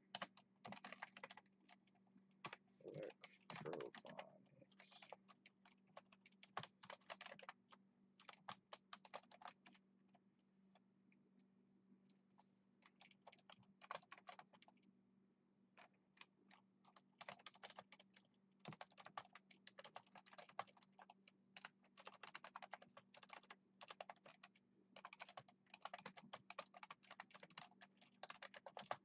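Typing on a computer keyboard: quick runs of key clicks in bursts, with a couple of short pauses, over a faint steady hum.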